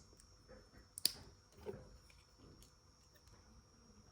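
Small plastic toy-kit pieces being handled and pressed together, with one sharp click about a second in and faint soft handling noises, over a faint steady high-pitched whine.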